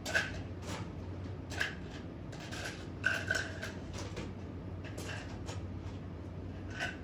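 Shake containers and utensils being handled: a series of knocks and short clinks, some with a brief ring, over a steady low hum.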